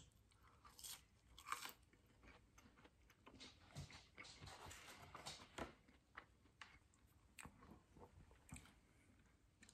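Faint chewing and mouth sounds of someone eating French fries, with scattered soft clicks and crunches.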